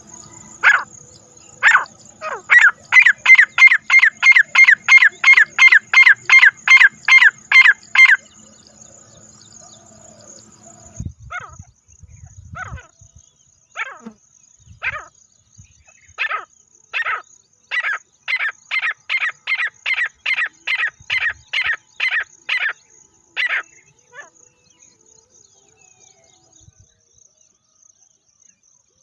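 Francolin calling: a loud series of short, repeated notes that starts slowly and quickens to about three a second, then after a pause a second series settling to about two notes a second.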